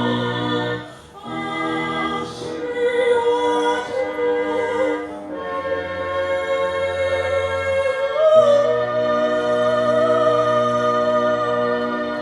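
Music with singing: voices holding long notes over sustained chords, with short breaks about a second and five seconds in and a step up in pitch around eight seconds.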